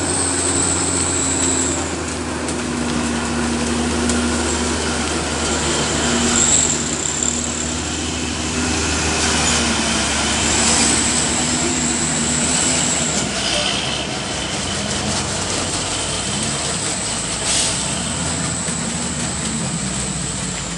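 Heavy fuel tanker truck's diesel engine running low and steady as it moves slowly around a bend, with a thin high squeal coming and going four times.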